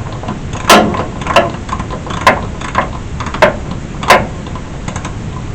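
Sharp metal clicks and knocks, about six of them spaced irregularly half a second to a second apart, as a 13 mm deep socket is worked on the hood latch nut from beneath, over a steady hiss.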